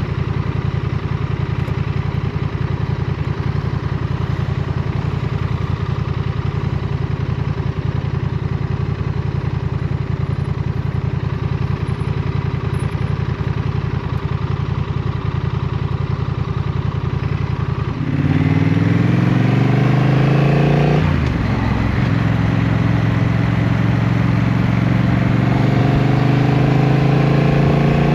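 Motorcycle engine running steadily at cruising speed. About two-thirds through it gets louder and climbs in pitch under acceleration, dips briefly at a gear change, then climbs again.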